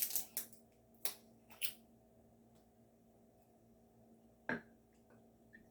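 Handling of a soju bottle just after swirling it into a whirlpool: a cluster of sharp clicks and short scrapes in the first two seconds, then one more click about four and a half seconds in.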